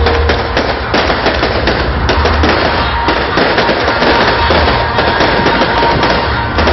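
Fireworks display: a dense, unbroken run of shell bursts and crackling, several bangs a second overlapping one another.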